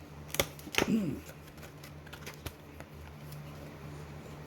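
Handling noise from AR-15 lower receiver parts being picked up and set down: a sharp click about half a second in, a short scraping knock around a second in, then a few faint ticks over a steady low hum.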